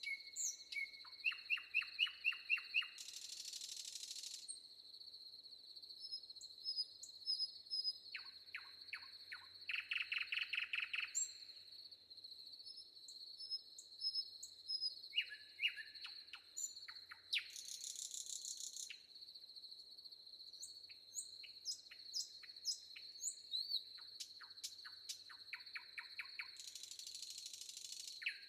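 Forest birds chirping and trilling, in fast runs of repeated notes and high short chirps, over a steady high-pitched insect drone. Three buzzy bursts, each about a second long, come through along the way.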